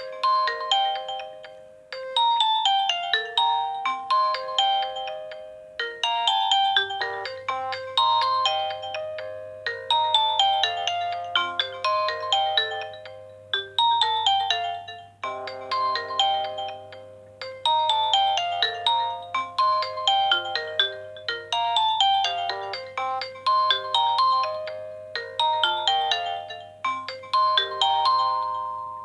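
Nokia N70 ringtone: a synthesized melody of short, bright notes in phrases that restart about every two seconds, each dying away. A low steady bass note joins about six seconds in, and the tune fades out at the end.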